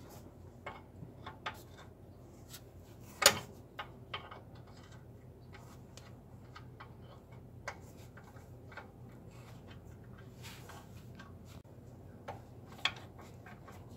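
Scattered light metallic clicks and knocks from a disc brake caliper being worked by hand on its mounting, with one sharp knock about three seconds in.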